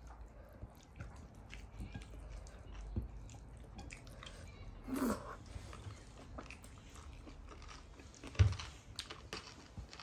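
Close-miked eating sounds: a person chewing mouthfuls of rice and curry eaten by hand, with many small wet mouth clicks and smacks. A short hum about halfway through, and one louder thump near the end.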